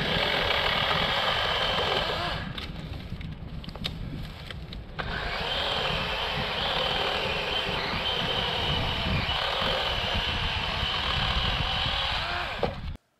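Chainsaw cutting into the limbs and trunk of a downed spruce: working hard for about two seconds, easing off for a few seconds, then cutting steadily again until it cuts off near the end.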